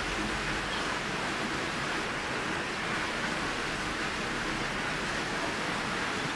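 Hard, steady rain pouring down, drumming on a tin roof overhead and hissing on the wet street, as one dense, even wash of noise.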